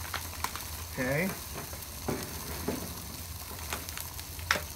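Food sizzling on a hot Blackstone flat-top griddle: a steady frying hiss with scattered small pops and crackles, and one sharper click near the end.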